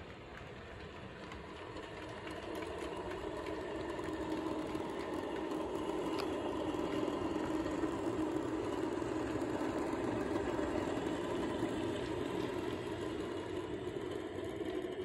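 Accurascale OO gauge model Class 37 diesel locomotive running along model track hauling coaches, a steady hum that grows louder over the first several seconds as it nears, then holds.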